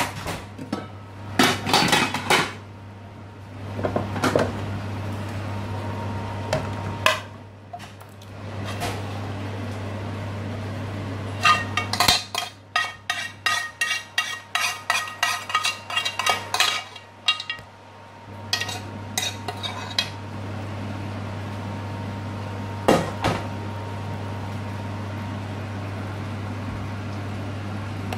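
Metal spoon stirring, scraping and clinking against a stainless steel frying pan of thick spinach and meat curry. Scattered knocks, with a run of quick clinks, about four a second, through the middle.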